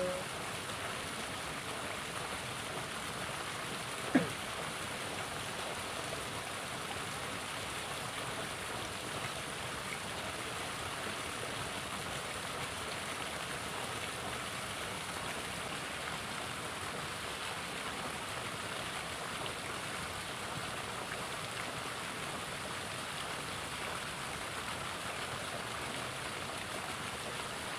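Shallow river water running over rocks, a steady rush, with a single sharp knock about four seconds in.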